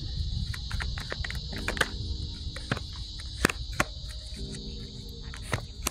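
A steady high trill of insects, with soft held chords of ambient music coming in twice and scattered sharp clicks.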